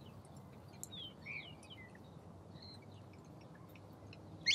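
Small birds chirping and whistling now and then, with short high notes that rise and fall, over a low steady background rumble; a louder call comes right near the end.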